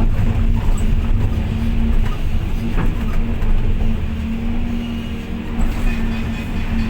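Volvo EC550 excavator's diesel engine running under load: a steady, loud drone with a constant hum, easing slightly about halfway through.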